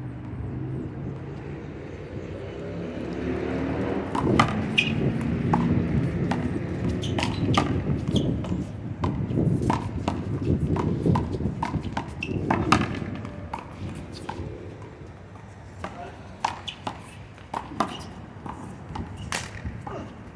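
Rubber handball rally: the ball is slapped by hand and smacks off the concrete wall and court in a run of sharp, irregularly spaced hits, with voices in the background.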